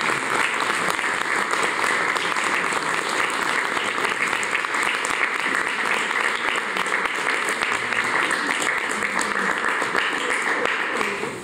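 Audience applauding steadily after a song, dying away near the end.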